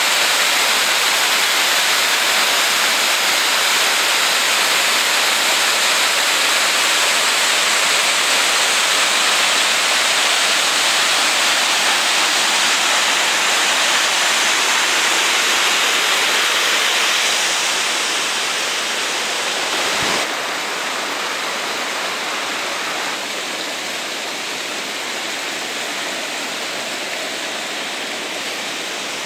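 Waterfall pouring into a rocky burn: a loud, steady rush of falling and running water. About two-thirds of the way through, the rush drops a little quieter, with a single brief knock.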